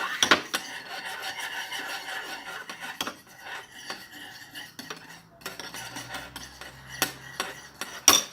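Teaspoons stirring glue and paint in bowls for slime: continuous scraping against the bowls with frequent clinks, a sharp knock near the end.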